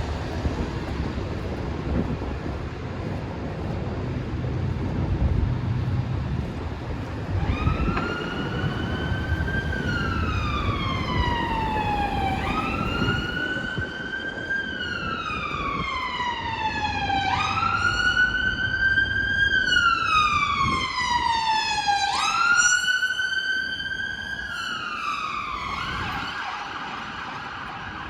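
Emergency vehicle siren wailing over city traffic noise: after about seven seconds of street rumble, a tone repeatedly jumps up and slides slowly down, about once every five seconds, then switches to a steady held tone near the end.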